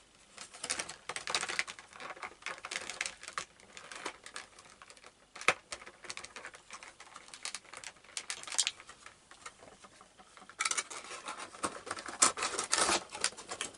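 Clear plastic packaging insert of a Funko Pop box crinkling and clicking as the vinyl figure is handled and fitted into it: irregular clicks and crackles, busiest in the last few seconds.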